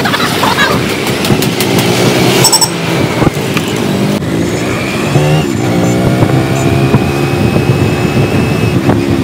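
A motorcycle engine running and street traffic noise, heard from a rider moving through town.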